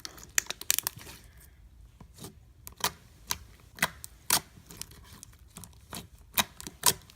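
Clear slime being squished and stretched by hand, giving off irregular sharp pops and clicks as trapped air bubbles burst.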